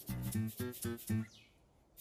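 Background music: a quick run of short pitched notes that breaks off about a second and a half in, leaving a brief near-silent gap.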